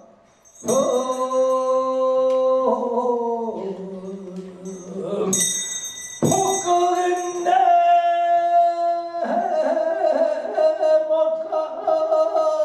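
Korean traditional singing in pansori style: long held vocal notes that waver and step down in pitch, broken by a short pause about five seconds in before the voice takes up another long note.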